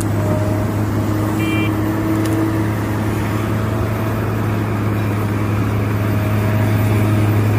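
Caterpillar 385C L hydraulic excavator's diesel engine running steadily under load as the machine digs and loads a dump truck, a constant low hum with a mechanical rumble over it.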